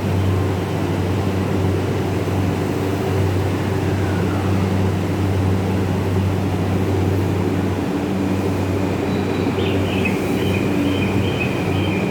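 Yamanote Line E235-series electric train pulling out of the station: a steady low motor hum with a faint rising inverter whine about four seconds in as it gathers speed. About ten seconds in, a high pulsing tone joins.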